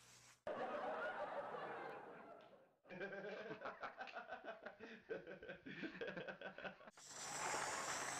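People laughing, a run of snickering and chuckling. Near the end an aerosol spray-paint can starts hissing steadily.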